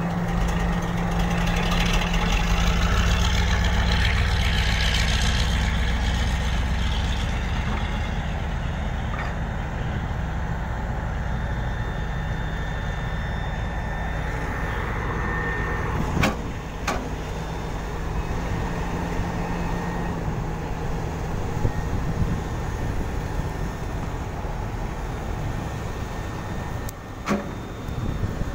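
Sumitomo SH350 hydraulic excavator's diesel engine running steadily, louder and heavier for several seconds near the start as the machine works. A few sharp knocks cut through, two about two-thirds of the way in and one near the end.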